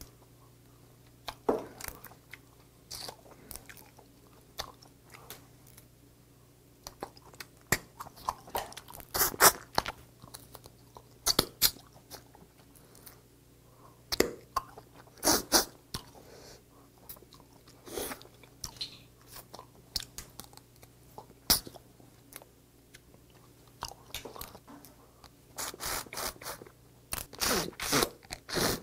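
Close eating sounds of steamed snow crab: crab shells cracking and crunching as legs are broken and the meat is pulled out, with chewing. The sharp cracks come irregularly throughout, in a dense run near the end.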